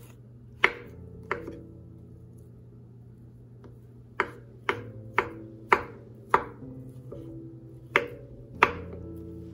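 Knife chopping on a cutting board: about nine sharp strokes, two near the start, a quick run of five in the middle and two more near the end.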